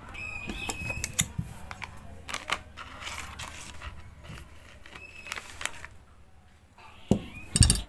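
Kurkure Masala Munch plastic snack packet being handled and squeezed, crinkling and crackling in irregular bursts, with a couple of louder thumps near the end.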